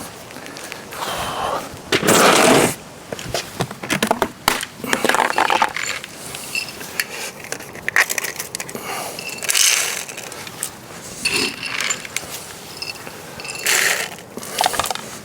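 Refilling a bird feeder: an irregular run of scrapes, rattles and clinks as bird seed is scooped and poured and the feeder is handled.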